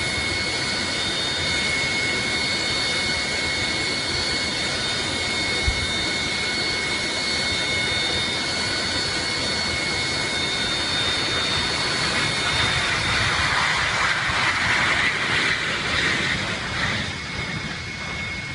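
Jet airliner's engines running: a steady rush with high whining tones over it. It swells louder about two-thirds of the way through, then eases off near the end.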